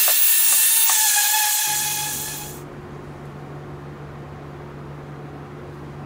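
Random orbital sander with its dust-extraction hose running, a loud hiss over a steady whine, cutting off abruptly about two and a half seconds in. A quieter low steady hum follows.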